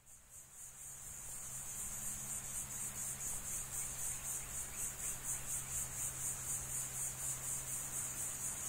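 Insects chirring in a rapid, even pulse as a desert ambience, fading in over the first couple of seconds, over a low steady hum.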